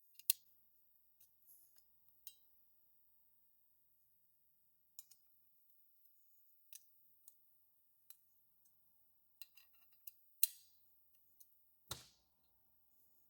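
Scattered light metallic clicks and clinks of a hex wrench and steel bolts being worked as foot pegs are bolted onto their brackets, with a duller knock near the end.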